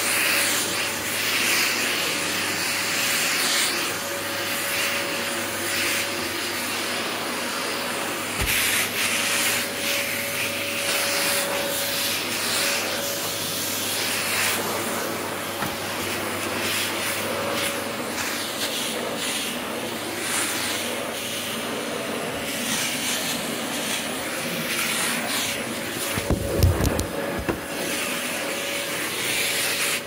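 Hoover Breeze Pets bagless cylinder vacuum cleaner running steadily on suction, a dense rushing noise with a faint steady tone in it, as the nozzle works the carpet. About four seconds before the end comes a cluster of heavy thumps as the filming phone is dropped.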